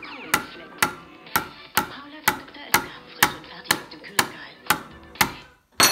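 A metal spoon tapping on a plastic pudding cup with a foil lid in a steady beat, about two taps a second. Near the end comes one louder, ringing metallic clink of the spoon.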